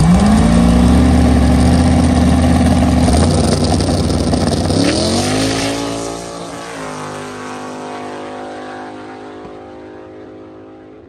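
Drag race car launching and accelerating hard. The engine's pitch climbs right away, holds, and climbs again about five seconds in, then the sound fades steadily as the car pulls away down the track.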